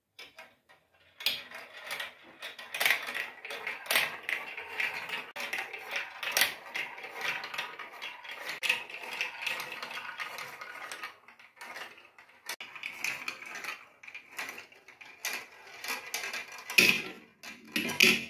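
Marbles rolling down a plastic marble-run track of spiral funnels, block chutes and wavy slopes. Starting about a second in, they make a continuous rattling clatter of many small clicks and knocks, with a few louder knocks near the end.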